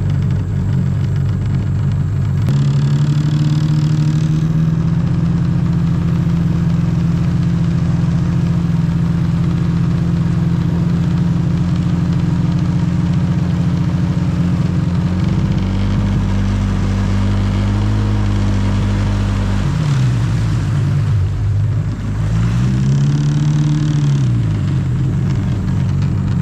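Jet ski engine running under way at a steady pitch, jumping up in pitch about two and a half seconds in. Near the end the revs drop and come back, then rise and fall once more.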